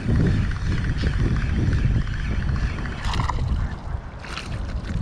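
Wind buffeting the microphone with a low, fluctuating rumble, and brief water splashes about three and four seconds in.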